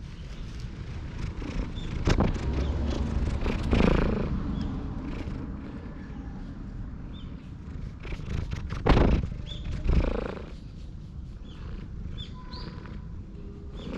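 A calico cat purring up close while being stroked. Several louder bumps and scuffs sound right at the microphone, about two seconds in, near four seconds, and twice near nine to ten seconds.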